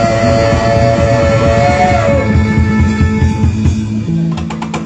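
Live band music: a long held note that bends and stops about two seconds in, over a steady drum beat, with a quick run of sharp drum strokes near the end.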